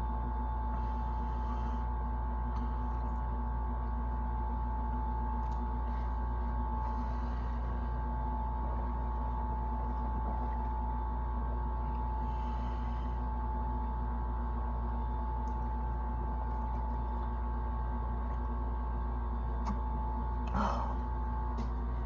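A steady hum with a constant high tone, with a few faint rustles, and a short throaty sound about twenty seconds in.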